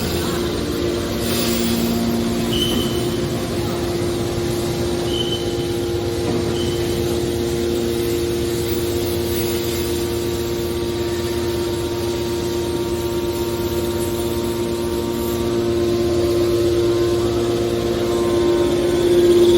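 Hydraulic scrap metal baler running: a steady mechanical hum with a constant whine from its hydraulic power unit, swelling a little near the end.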